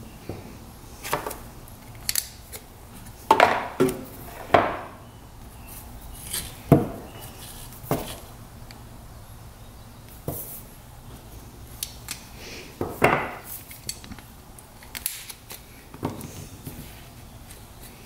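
Workshop handling noise: irregular clinks, clicks and knocks of hand tools and small parts being picked up and set down while new fuel line is cut and fitted. The sharpest knocks come between about three and seven seconds in and again around thirteen seconds.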